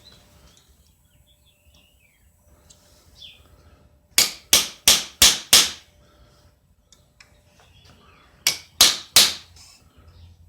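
Hammer blows: five quick strikes at about three and a half a second, then after a pause three more.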